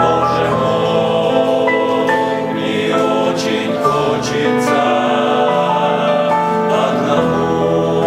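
Men's vocal ensemble singing a hymn in slow, held chords, with no clear words.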